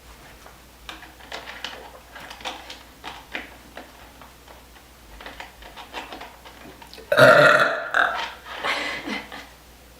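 A girl burping from drinking carbonated cola: soft, short sounds for the first few seconds, then one loud burp about a second long starting about seven seconds in, followed by a few shorter ones.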